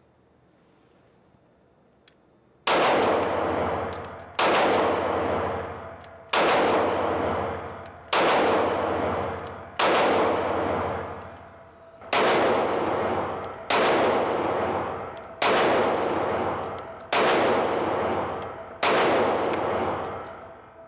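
Ten 9mm pistol shots from a Taurus G2c, fired at an even, unhurried pace about one every two seconds, starting a few seconds in. Each shot is followed by a long echoing tail.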